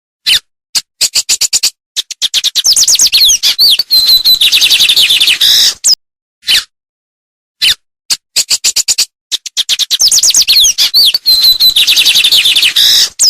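A songbird singing: two long phrases of rapid chirps, trills and sweeping high whistles, each about four to five seconds, with a few short single calls and gaps of complete silence between them.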